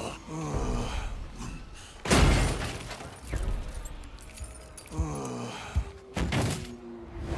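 The Hulk's deep, falling grunts and growls. A loud crash with shattering comes about two seconds in, and another sharp impact comes around six seconds, over film music.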